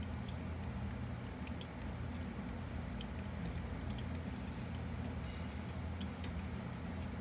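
Cardisoma carnifex land crab feeding on an apple slice: small scattered clicks and crunches from its mouthparts and claws on the fruit, with a brief rustle a little past the middle. A steady low hum runs underneath.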